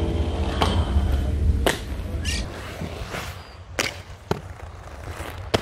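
Background music fading out, then several sharp clacks and knocks of aggressive inline skates on concrete and a metal rail, spaced a second or more apart.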